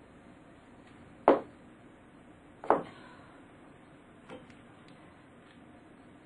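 Two sharp knocks about a second and a half apart, then a fainter one and a few small ticks: a shoe knocking against the floor as a woman puts on her stockings and shoes.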